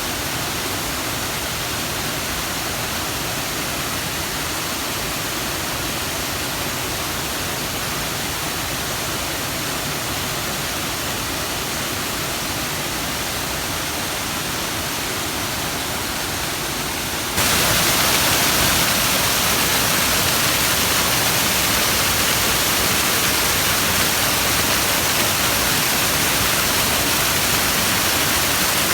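A waterfall in spate, its flow swollen after a typhoon, falling in a steady, powerful rush of water. About two-thirds of the way in, the rush turns abruptly louder and brighter.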